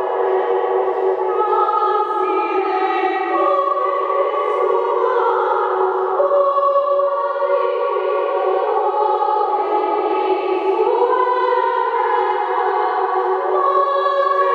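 A women's choir sings medieval sacred music in several parts, with long held notes that overlap and slide from pitch to pitch. The singing rings in the long echo of a stone abbey church.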